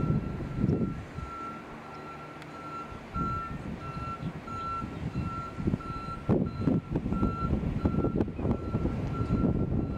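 Truck backup alarm beeping steadily, a single high tone about twice a second, while the pickup reverses with its trailer. An uneven low rumble runs underneath, stronger in the second half.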